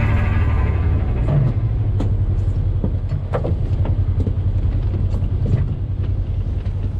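An off-road vehicle's engine running steadily as it drives along a rough trail, with scattered knocks and rattles. Music fades out at the start.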